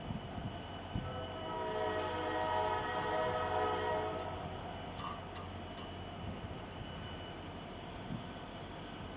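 Freight diesel locomotive's multi-chime air horn in one long held blast that fades out about halfway through, over the low, steady rumble of the approaching train.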